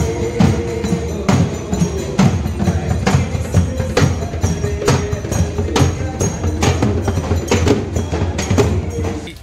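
Dhol drums, large double-headed barrel drums, beaten with sticks by a troupe in a loud, fast, steady rhythm.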